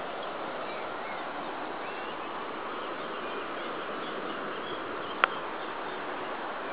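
Steady hiss of light rain falling on garden foliage, with a few faint high chirps and one sharp click about five seconds in.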